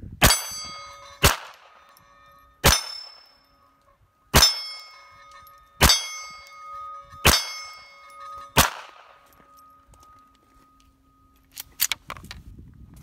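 Smith & Wesson SW22 Victory .22 LR pistol firing seven shots of Aguila 40-grain lead ammunition, about one every second and a half. Most shots are followed by the ring of a steel plate target being hit. A few light clicks come near the end.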